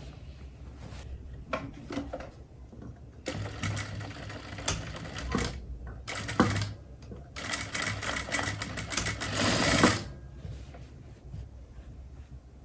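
Sewing machine stitching a zipper onto a trouser front in two runs: the first from about three seconds in to six, the second from about seven and a half seconds to ten. Quieter handling of the fabric comes between the runs and after them.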